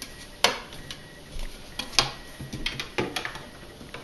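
Sharp plastic clicks and knocks at uneven intervals, the loudest about half a second and two seconds in, as a refrigerator door piece is pushed back onto its plastic clips.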